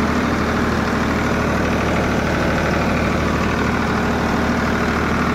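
Farmtrac 50 (Ford 3600) tractor's three-cylinder diesel engine running steadily at a fixed 1500 rpm with no load.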